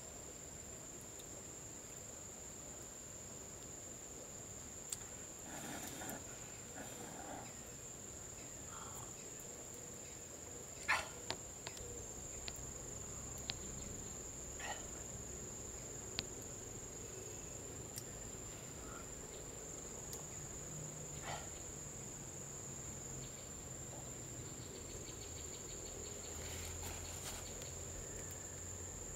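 Steady, high-pitched insect chorus, crickets or similar, droning without a break. Scattered short clicks and knocks sound over it, the loudest about eleven seconds in.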